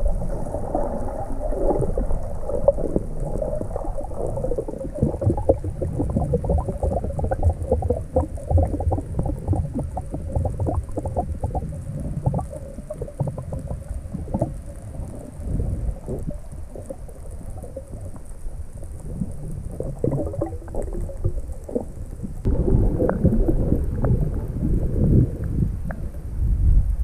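Underwater sound picked up through a camera's waterproof housing during a freedive: muffled water rushing and bubbling, with many small knocks and crackles. It grows louder about 22 seconds in.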